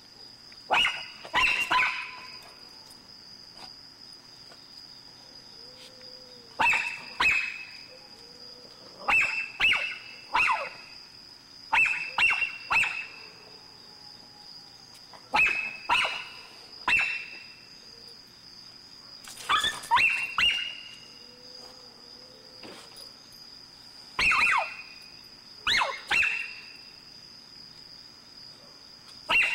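Miniature pinscher barking in sharp, high yaps, mostly in pairs, with pauses of a few seconds between them, while going after a stray cat hiding under a car. A steady cricket chirring runs behind.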